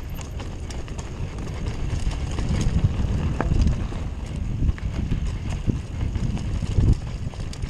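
Mountain bike descending a dirt forest trail: the tyres rumble over dirt and roots while the bike rattles and clacks with every bump. The knocks come thick and irregular, busiest in the middle of the run.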